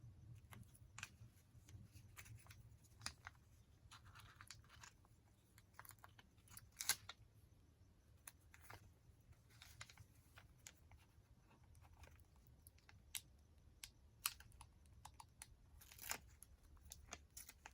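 Faint handling of journal paper: scattered light rustles and small taps, with a sharper click about seven seconds in.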